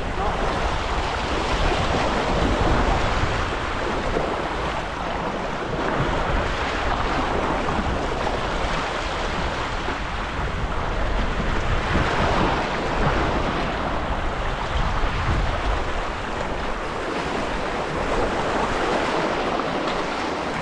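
Harbour water washing and lapping against shoreline rocks, swelling and easing every few seconds, with wind buffeting the microphone throughout.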